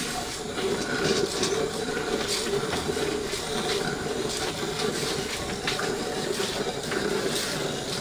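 Milk squirting by hand from a cow's teats into a metal pail already holding milk: a quick, even rhythm of short spurts, a few each second, over a steady low hum.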